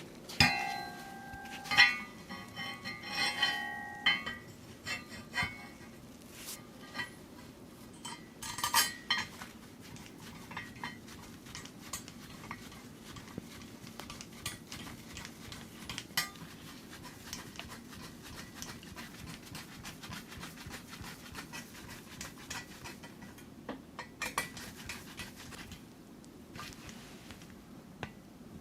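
Metal PC case parts and small hardware being handled during assembly. In the first few seconds the pieces clink against each other and ring briefly, and after that come scattered small clicks and taps.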